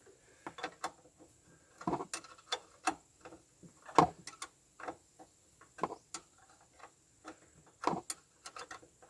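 Irregular metallic clicks and knocks from hand tools and parts being handled during reassembly, with the sharpest knock about four seconds in.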